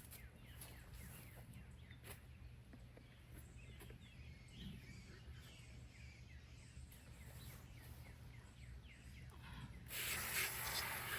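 Faint chirping of small birds over a steady low rumble; about ten seconds in, a louder steady hiss starts.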